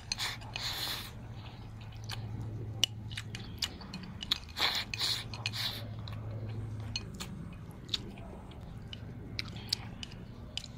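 A person eating rice close to the microphone: chewing and biting with the bowl at the mouth, with two loud slurps as mouthfuls are drawn in, one near the start and one about five seconds in, and many short sharp clicks of chopsticks on the bowl.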